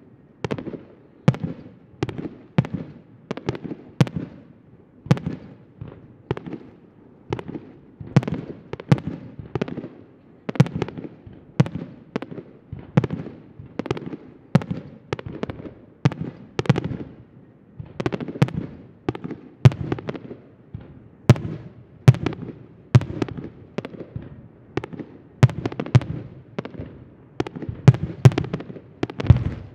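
Aerial firework shells bursting in a rapid, unbroken series, more than one bang a second, each sharp report trailing off in a short echo.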